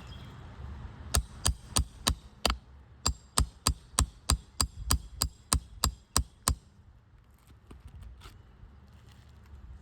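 A roofing hammer striking a metal nail-removal tool in a quick run of about seventeen sharp taps, roughly three a second, working a shingle nail loose; a few faint clicks follow.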